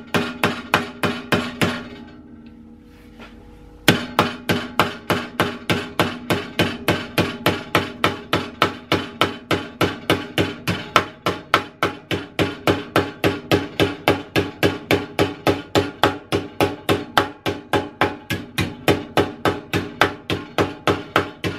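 Planishing hammer tapping a sheet-steel lip over an angle-iron edge, about four light blows a second with a short pause about two seconds in. Each blow has a harsh metallic ring because the steel is now making contact with the angle iron beneath it as the lip folds over.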